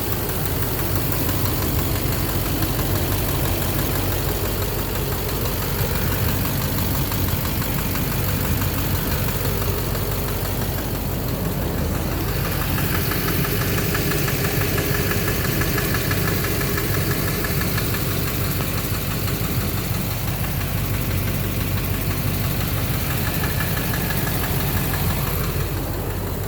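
Duramax LMM 6.6-litre V8 turbo-diesel idling steadily on a cold start. The intermittent knock being diagnosed is not clearly present. About halfway through the sound shifts and a faint steady whine comes in.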